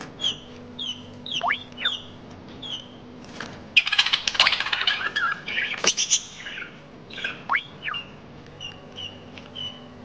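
Baby chicken chick peeping: short high peeps, several gliding steeply downward. About four seconds in, a budgie's dense, scratchy chatter breaks in for a couple of seconds and is the loudest part.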